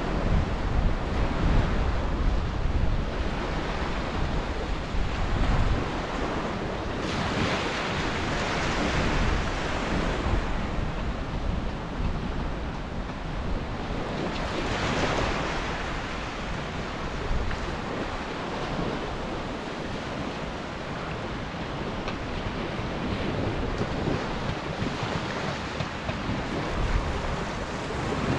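Small surf breaking and washing up a sandy beach, surging louder every several seconds. Wind rumbles on the microphone, strongest in the first few seconds.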